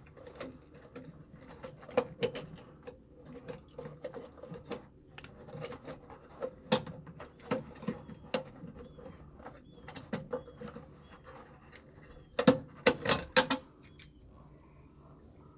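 Irregular mechanical clicks and taps over a steady low hum, with a quick flurry of louder clatter about twelve seconds in.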